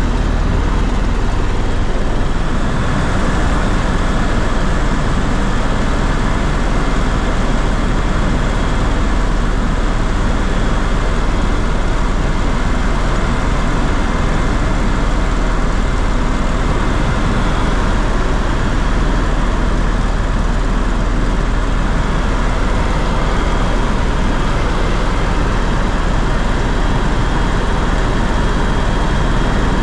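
Steady engine and airflow noise inside the cabin of a tour aircraft in flight: a loud, unbroken drone with a deep rumble underneath and faint steady whines above it.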